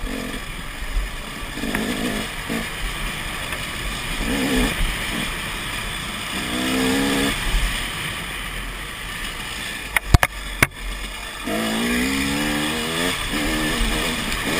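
KTM dirt bike engine running under load on a trail, rising in pitch as it revs up twice, with wind rushing over a helmet-mounted camera. A few sharp knocks about ten seconds in.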